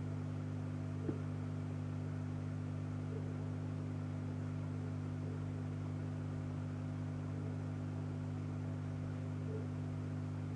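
A steady low hum in several fixed pitches, with a single faint tick about a second in.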